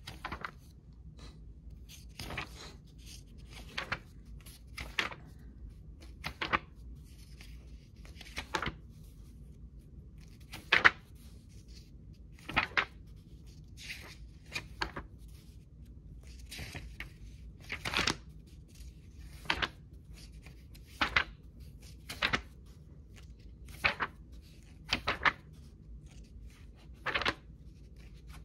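Pages of an old hardcover book being turned one after another, a short paper swish every second or two.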